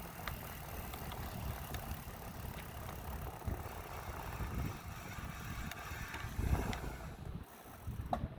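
Wind rumbling on the microphone of a moving e-bike, with faint clicking from the bike's mechanism, a few sharper clicks near the end.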